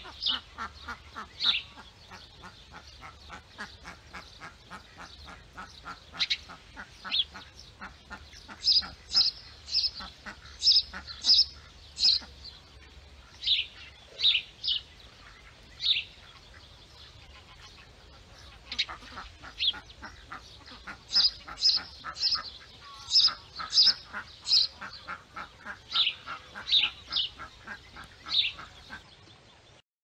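Ducks and other birds calling: a fast, steady run of short calls, with sharp high-pitched calls over it that come in clusters of two to four.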